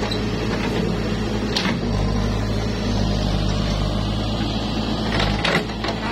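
Case 580 backhoe loader's diesel engine running steadily under load as the backhoe arm digs, with a few sharp metal clanks from the bucket and boom linkage, one about a second and a half in and a couple near the end.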